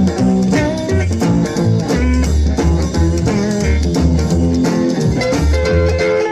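Electric blues instrumental led by a steel guitar played with a slide, with sliding notes over a drum kit and a pulsing low bass line.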